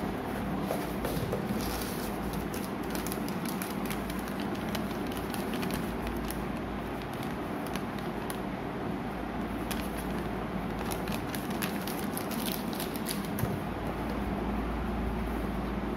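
Light crackling and rustling from a paper invoice and cardboard packaging being handled, thickest through the middle, over a steady low background hum.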